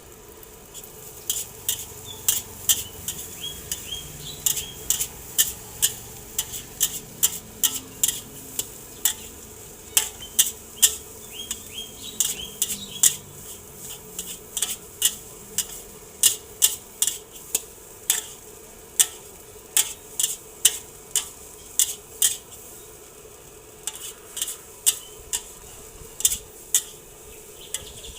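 Metal spatula clanking against a wok as nasi goreng is stir-fried, about two strikes a second in an uneven rhythm, over the sizzle of the frying rice.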